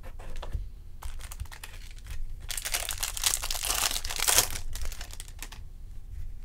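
Foil wrapper of a trading card pack crinkling and tearing open, loudest for about two seconds in the middle, with light clicks of handling before and after.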